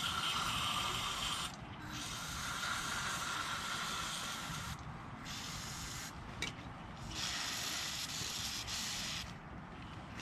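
Aerosol can of Lucas penetrating oil hissing in about four spray bursts with short pauses between them. It is being sprayed onto a lawn tractor starter's Bendix gear that keeps hanging up.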